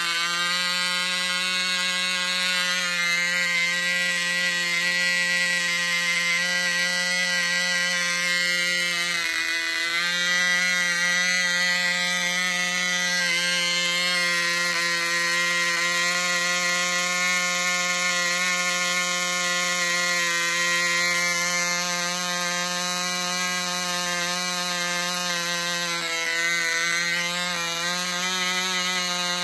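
Cox .049 two-stroke glow engine on a control-line model plane running steadily. Its pitch dips briefly about nine seconds in and wavers again near the end.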